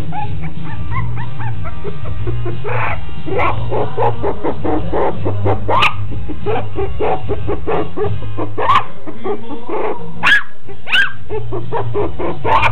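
Chinese Crested puppies yipping and barking over background music, the calls coming thick and fast from a few seconds in, with a few louder yelps in the second half.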